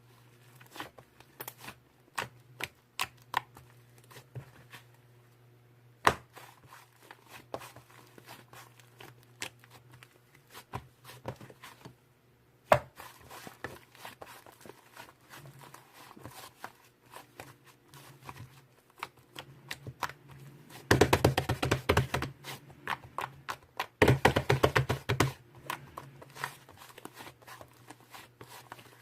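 White slime being worked by hand: scattered sticky clicks and pops, then two runs of rapid crackling in the last third, each a second or two long.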